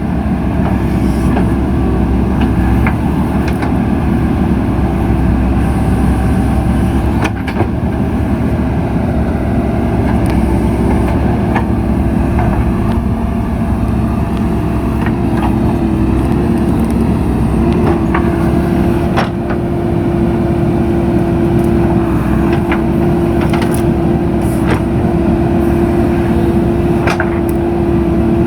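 JCB 3DX backhoe loader's diesel engine running steadily under work, with a steady hum over it that rises slightly about two-thirds of the way through. Occasional clanks are heard.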